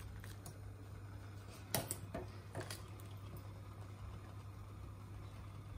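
Wire-mesh skimmer scooping boiled watermelon rind cubes out of a steel pot, with a few light clinks against the pot, the loudest about two seconds in, over a steady low hum.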